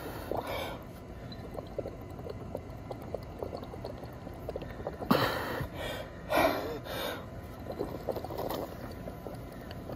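Air blown out through a straw bubbling into a glass flask of liquid, with sharp breaths drawn in about five and six and a half seconds in: the blower is out of breath after a minute of running stairs.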